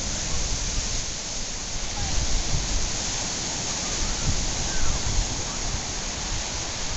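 Steady rush of lake surf breaking on a sand beach, with wind rumbling on the microphone.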